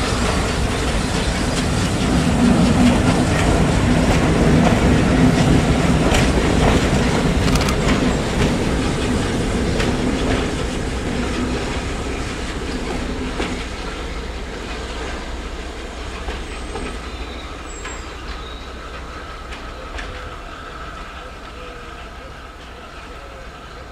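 A passenger train's coaches rolling past, their wheels clicking over the rail joints. It is loudest a few seconds in, then fades steadily as the train draws away.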